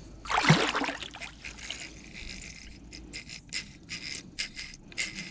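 A hooked sturgeon thrashing at the surface of an ice-fishing hole: one loud splash about half a second in, then a run of smaller splashes and sloshing water.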